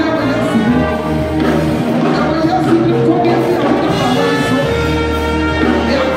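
Church music: held keyboard chords over a sustained bass line, with a voice singing or chanting over it.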